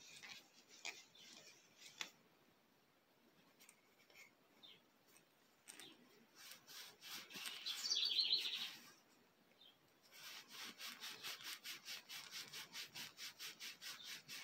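Cloth rubbing beeswax-and-mineral-oil polish onto a turned maple baby rattle. There is a louder rasping stretch in the middle, then quick, even back-and-forth strokes, about five or six a second, toward the end.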